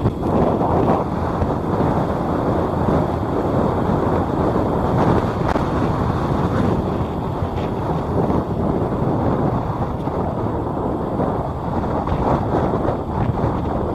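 Caterpillar 320D2 hydraulic excavator's diesel engine running steadily, with wind buffeting the microphone.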